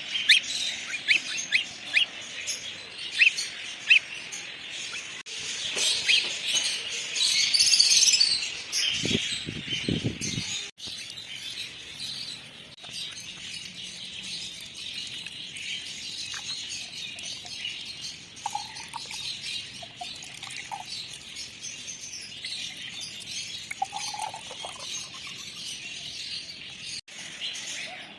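Pet birds in an aviary or cage room chirping and calling, many quick high chirps at once, busiest during the first several seconds and thinner later. A brief low noise comes about nine to ten seconds in.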